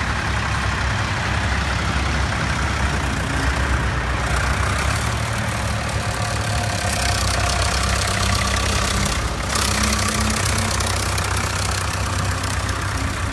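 Vintage farm tractors, a blue Fordson and a grey Ferguson among them, driving past one after another at a slow steady pace with their engines running.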